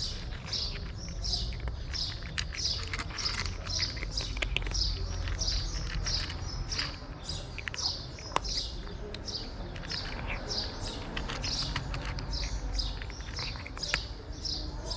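A small bird chirping over and over, about three short high chirps a second. Irregular sharp crunches come from a cat chewing dry kibble close by, over a low steady rumble.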